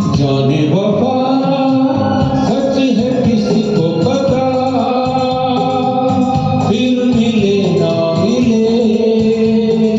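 Karaoke backing track of a Hindi film song playing: an instrumental passage with a sustained, gliding melody line over keyboard accompaniment.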